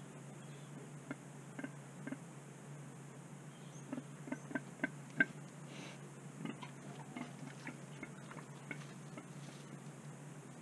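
Warthog moving over dry leaves and loose soil: scattered short ticks and clicks, with a quick run of louder ones about four to five seconds in, over a faint steady hum.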